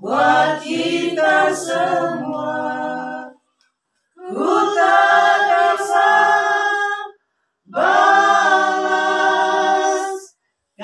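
Small church choir singing a hymn a cappella, unaccompanied voices in three sustained phrases, each broken off by a short silence.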